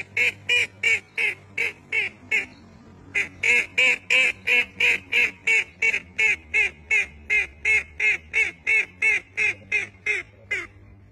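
White domestic duck quacking in a long, rapid run of short quacks, about three a second, with one brief pause early on. The quacks stop shortly before the end.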